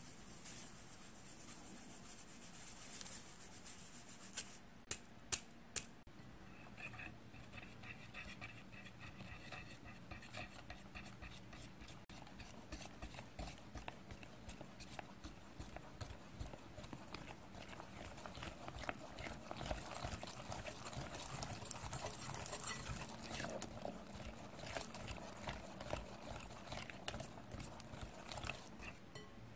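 Flour and almond flour rubbed by hand through a fine stainless-steel mesh sieve, with four sharp clicks about five seconds in. Then a wire whisk stirring flour into egg-white batter in a glass bowl: a run of light, quick ticks and scraping of the wires on the glass that gets louder as the batter thickens.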